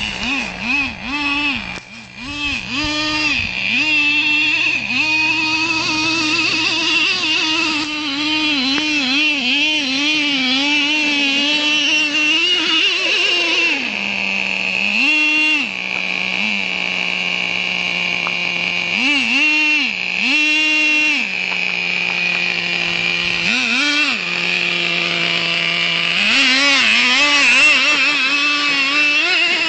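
A Traxxas T-Maxx RC monster truck's small nitro glow engine runs with a high whine, revving up and down in repeated throttle bursts. Between runs it drops back several times to a steady idle for a few seconds, mostly around the middle.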